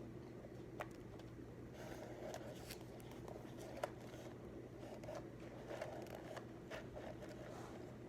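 Pen or pencil scratching on paper in short strokes, with two small sharp clicks, over a steady low room hum.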